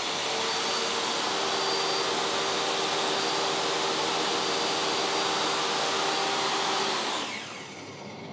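DeWalt 7492 table saw's 2 kW motor spinning a sanding disc with no workpiece on it, together with a dust extractor, in a steady loud whine and rush. About seven seconds in the saw is switched off and winds down, falling in pitch, and the quieter extractor is left running.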